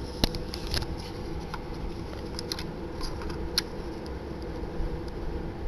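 Scattered small clicks and taps of hands handling a Sony HDR-CX405 camcorder and working its card slot, with one sharp click about a quarter second in, over a steady low room hum.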